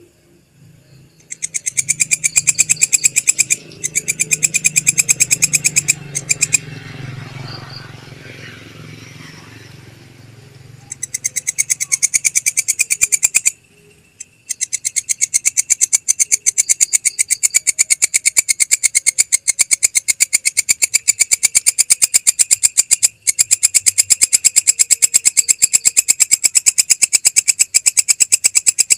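Belalang kecek insect calling: a fast, even clicking trill, first in a few bouts of two or three seconds broken by pauses, then running almost without a break from about halfway. A low hum sits under the first few seconds.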